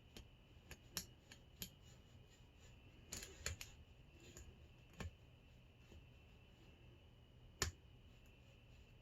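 Faint, scattered small clicks and ticks of a lock pick and tension wrench working the pin tumblers of a Hurd padlock, with a short flurry a little after three seconds and one sharper click about seven and a half seconds in.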